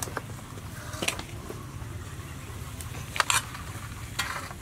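Metal spatula and tongs clinking against a wok and crab shells: a few sharp clicks, some of them briefly ringing, over a steady low hum.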